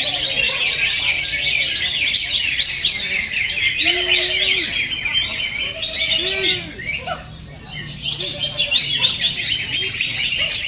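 Cucak ijo (green leafbirds) singing fast, dense chattering song with many overlapping chirps and trills, as at a song contest, with a brief lull about two-thirds of the way through.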